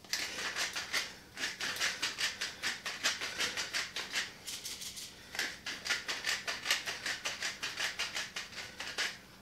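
Hand-twisted pepper mill grinding black peppercorns: a fast, gritty rattle of clicks, about five or six a second, easing briefly about four seconds in before going on.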